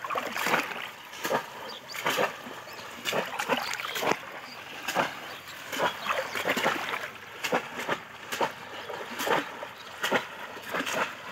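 Pond water splashing and sloshing in a string of irregular splashes, one or two a second, as someone wades and gropes by hand for fish.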